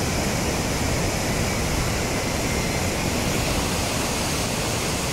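Muddy flash floodwater rushing down a wadi, a loud, steady, even rush of water with no let-up.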